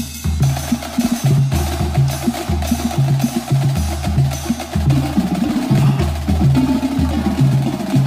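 Marching percussion battery playing: rapid snare and tenor drum strokes over a repeating pattern of low bass notes.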